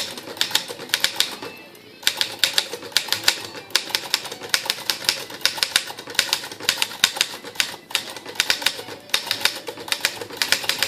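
1959 Torpedo 18-B manual portable typewriter being typed on in all caps: quick runs of sharp keystroke clacks, with a short pause just over a second in, then steady typing.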